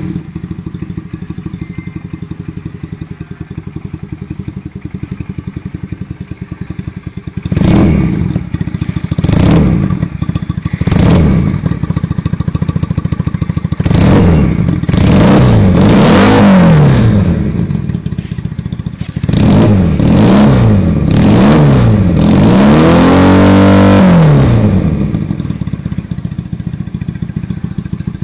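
Leonart Daytona 125cc motorcycle engine running through Tapered aftermarket exhaust pipes: idling steadily, then blipped several times and revved up and down in longer pulls, settling back to idle near the end.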